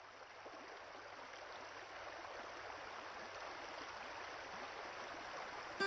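Flowing stream water rushing steadily, heard from a camera at the water's surface and slowly growing louder.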